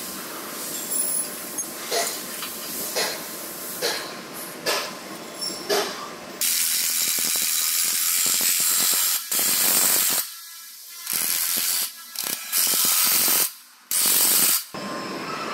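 Ratchet wrench clicking as it is worked to tighten a clamp on a chassis beam. At first there are slow single clicks about a second apart, then, from about six seconds in, longer runs of rapid clicking broken by short pauses.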